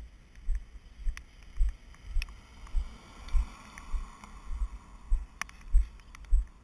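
Regular low thumps on the camera, a little under two a second, like the jolts of footsteps on a carried camera, with a soft hiss swelling and fading about halfway through.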